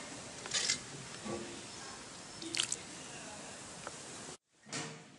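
Wet squelching of rice and snakehead fish curry being mixed, in three short bursts over a steady hiss.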